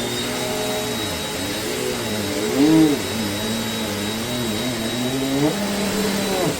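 Amazon Basics 720 W upright bagless vacuum cleaner running on a shag rug: a steady high motor whine over a lower hum whose pitch sags and wavers as the load changes, with a louder swell about two and a half seconds in. The suction grips the rug so hard that the head won't push forward.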